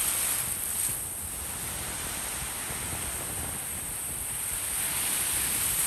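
Ocean surf washing on a beach, a steady rush that swells at the start and again near the end, with wind buffeting the phone's microphone.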